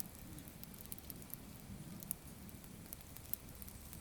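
Small campfire of gathered firewood crackling, with scattered faint pops and ticks over a low steady rustle of the burning.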